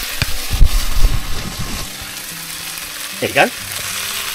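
Chicken mince frying in a pan, a steady sizzle. It is overlaid by low knocks and rubbing from the camera being handled in the first couple of seconds.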